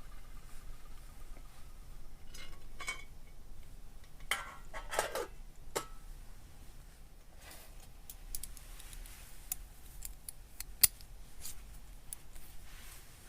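Scattered light clicks and clinks of small, hard, partly metallic objects being handled, bunched a few seconds in, with one sharp click near the end.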